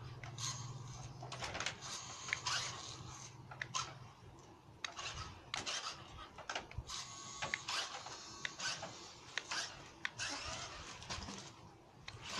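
Small electric motor and plastic gearbox of a toy RC rock-crawler truck whirring in stop-start bursts as it drives on a concrete floor, with clicks and rattles of gears and wheels.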